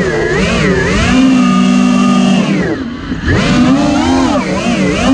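iFlight Titan FPV quadcopter's brushless motors and propellers whining, the pitch wavering up and down with the throttle. It holds steady for a moment about a second in, drops sharply near three seconds in as the throttle is cut, then climbs back up.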